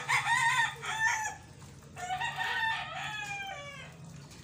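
A rooster crowing twice, about two seconds apart, the second crow ending in a long falling note.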